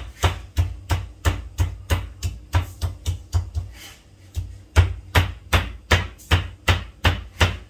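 Stone pestle pounding shallots, garlic and chilies into a spice paste in a black stone mortar (cobek). Sharp, regular strikes come about three a second, with a brief pause about four seconds in.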